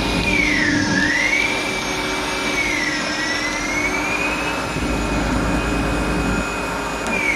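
Gildemeister NEF CT40 CNC lathe's spindle drive running with a high whine. Its pitch dips and rises as the spindle speed changes, holds steady, then starts to fall right at the end as the spindle slows.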